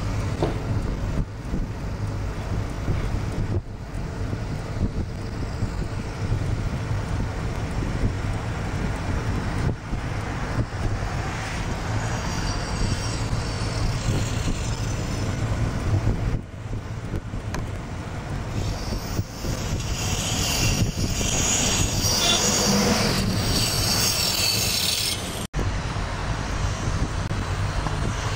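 Steady low rumble and road noise of a moving vehicle, with a harsher high hiss building up for several seconds past the middle; the sound drops out for an instant near the end.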